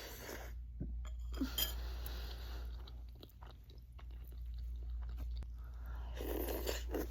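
A person chewing a mouthful of ramen noodles close to the microphone, with many small wet mouth clicks, over a steady low hum.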